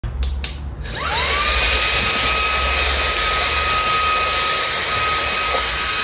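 Handheld cordless vacuum cleaner driven by a 120 W brushless (BLDC) fan motor on a 21.6 V battery. It spins up with a rising whine about a second in, then runs at a steady high pitch. Two short clicks come just before the motor starts.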